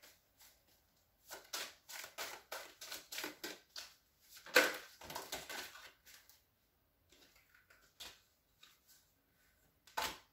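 A deck of tarot cards being shuffled by hand: a quick run of card clicks and flicks with one louder snap a little before the middle, then a few sparse taps and a sharper one near the end as cards are set down on the table.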